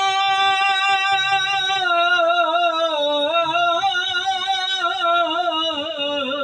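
A solo male voice singing Punjabi Sufi kalam, holding one long drawn-out note. The note is steady for about three seconds, then dips and wavers in ornamented turns until the end.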